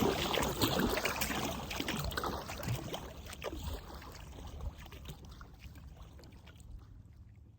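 Water splashing and trickling around a paddled boat on a river, with a few light knocks, fading out steadily.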